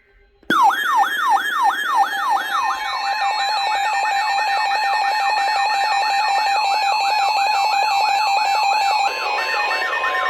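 Emergency Alert System warning alarm: a siren-like tone that falls in pitch over and over, about three times a second and then quicker, over a steady two-tone attention signal. It starts abruptly just after the start and is loud. Near the end one of the steady tones drops out while the sweeps go on.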